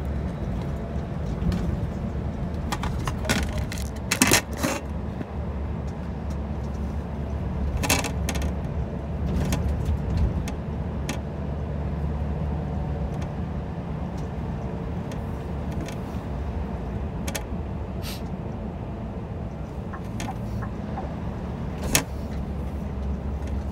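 Scania R 730's 16-litre V8 diesel running steadily under way, heard from inside the truck cab as a continuous low drone. Short sharp clicks and rattles break in every few seconds.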